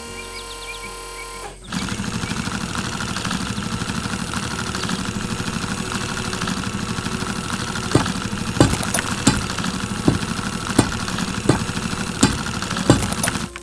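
A heavy machine's engine starts running loudly about two seconds in, with a fast steady pulse. From about eight seconds, sharp knocks land every half second to a second on top of it.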